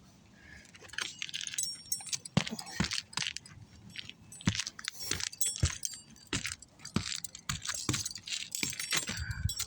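Loose steel roofing nails jingling and clinking as they are handled, a quick irregular run of small metallic clicks with a bright ringing edge.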